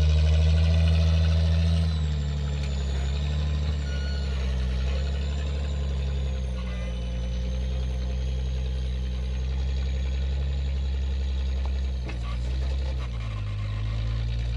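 Rock-crawler buggy's engine running under load as it climbs a boulder pile. It is loudest for the first two seconds, then eases, dips briefly near the end and picks up again.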